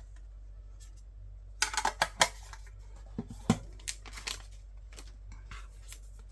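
Small metal tin being opened and its contents handled: a run of light clinks and clicks, with a few sharper knocks after about two seconds and again around three and a half seconds.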